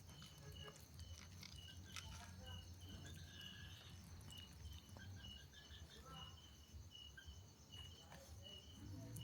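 Faint outdoor insect chirping: a short high chirp repeating about two to three times a second over a steady high-pitched drone, with a low hum underneath.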